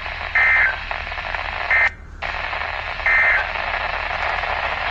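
Three short bursts of EAS SAME digital data tones, a warbling two-tone screech, about a second and a half apart, over the hiss of NOAA Weather Radio reception. The signal drops out briefly near the middle.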